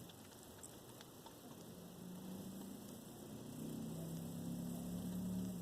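A few faint clicks, then a low steady electrical hum that starts about two seconds in and grows a little louder.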